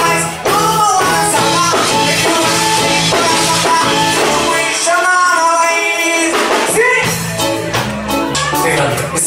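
Live reggae band playing: drums, bass guitar and saxophone in a groove with a melody line over it. The low end drops out for about two seconds past the middle, then comes back in.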